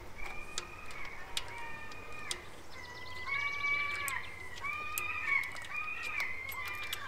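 Birds calling over and over in a string of drawn-out, steady-pitched calls, with scattered sharp clicks between them.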